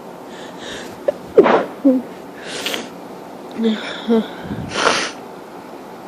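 A person sneezing three times in a fit, with short gasps and vocal sounds between, the first sneeze the loudest. An allergic sneezing fit brought on by grass pollen.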